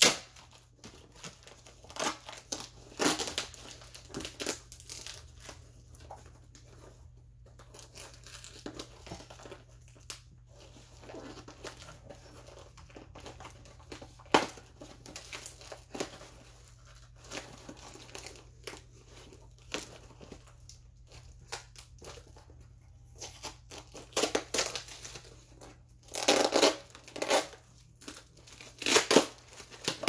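A small brown paper mailer package being worked open by hand, with irregular ripping and crinkling of the packaging as it resists opening. The rips come in scattered bursts, with a run of louder ones near the end.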